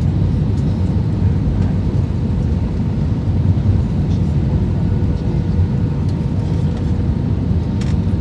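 Steady cabin noise inside an Airbus A320 descending to land: an even, low rumble of the engines and the airflow over the fuselage, with a faint steady hum. A couple of faint clicks sound near the end.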